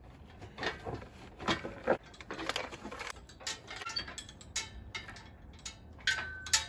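Engine hoist loaded with a 440 big block being rolled back across wooden boards: irregular metal clanks, knocks and rattles from the casters, chain and hoist frame on the wood, with a brief squeal near the end.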